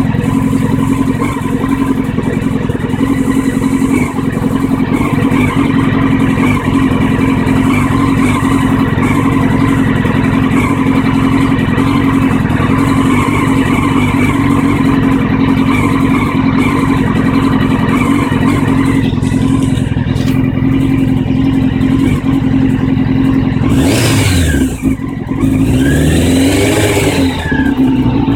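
Carburetted inline-four engine of a 1999 Honda CBR600F4 motorcycle idling roughly, then revved up and back down twice near the end. The rough idle persists despite cleaned and balanced carbs, a new air filter, fuel filter and spark plugs, and its cause is unknown to the owner.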